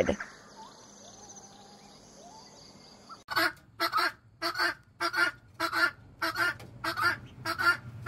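Helmeted guineafowl calling in a rapid series of short, harsh, grating calls, about two to three a second, starting a little after three seconds in. Before that there is only faint background sound.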